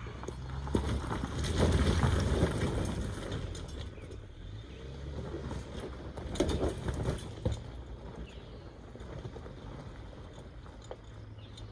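A 2019 Ford Ranger's 2.3-litre EcoBoost engine pulls the truck up a loose-rock hill, a steady low rumble, while rocks crunch and crack under the tyres. The crunching is loudest about two seconds in and again around six seconds in. The sound eases off as the truck climbs away.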